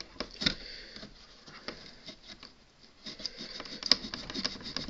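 Cloth wiping and rubbing around a computer motherboard, with scattered small clicks and rustles of handling that come thicker from about three seconds in.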